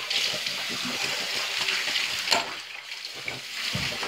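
A steady hiss, thinning about halfway through, with a sharp click a little past two seconds in and a short low thump near the end.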